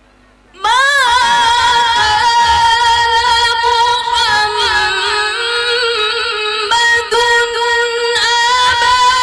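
A woman reciting the Qur'an in the melodic qira'ah style. She comes in about half a second in with long, held notes that wind up and down in pitch.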